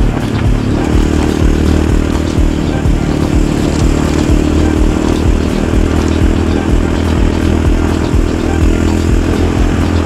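Yamaha Raptor 700 ATV's single-cylinder four-stroke engine running at fairly steady revs while riding, with light clatter over it.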